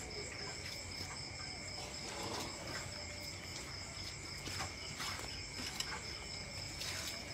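Steady high chirring of crickets, two unbroken tones at different pitches.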